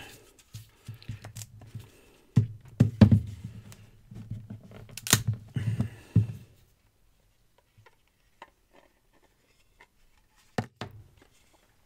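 Hands working apart the stuck halves of a 3D-printed PLA injection mold: knocks, clicks and handling rubs from the plastic, the sharpest click about five seconds in, then mostly quiet with one more click near the end.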